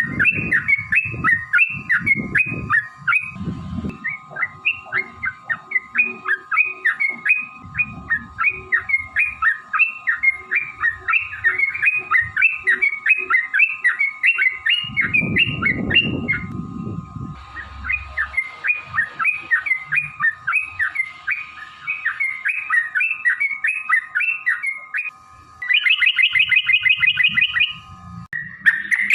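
Yellow-vented bulbul singing a long, rapid run of short chattering notes, about four a second, that quickens into a fast trill near the end. A steady tone hums underneath, with low rumbles near the start and about halfway.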